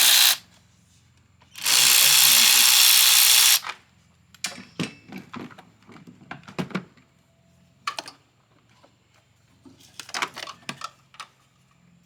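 Power tool on a 10 mm socket, run in two bursts of about two seconds each to back out a bolt. After the bursts come scattered light clicks and clinks of metal tools and parts being handled.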